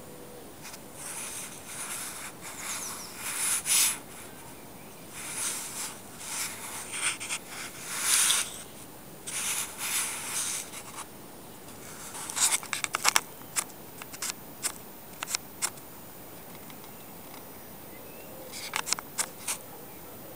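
Camera handling noise: irregular rubbing and scraping bursts for the first half, then a scattered run of short sharp clicks as the camera is moved and zoomed.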